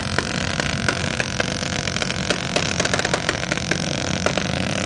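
Several ATV engines running and revving hard under load as the quads plough through deep water and mud.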